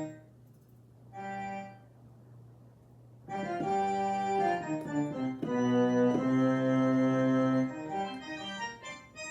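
Roland FP-30 digital piano playing one of its organ voices: a short chord about a second in, then from about three seconds a run of sustained organ chords that shift from one to the next and die away near the end.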